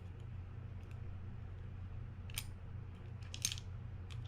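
A few light metallic clicks and ticks of small fishing-reel parts being handled during disassembly, over a steady low hum.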